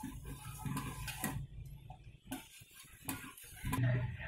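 Metal ladle stirring a thin liquid in a metal cooking pot, knocking against the pot's side in several light clinks at irregular intervals.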